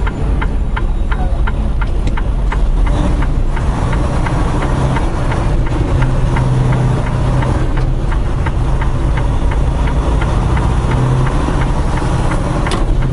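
Tractor-trailer's engine running, heard from inside the cab as a steady low rumble, with a rapid regular ticking about four times a second.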